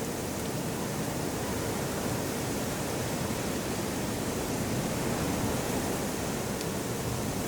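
Outdoor mountain hillside ambience: a steady, even rushing noise with no distinct events standing out.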